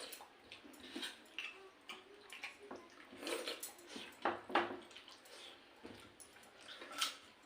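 Eating noises from a meal of pakhala, fermented rice in water: irregular wet squelches and slurps, with scattered small clicks.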